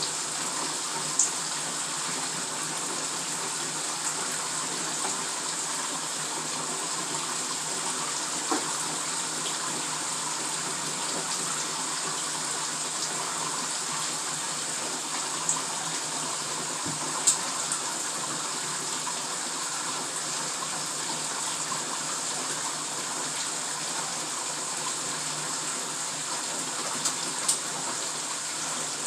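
Bathtub filling from the tap: a steady rush of running water, with a few light clicks and taps over it.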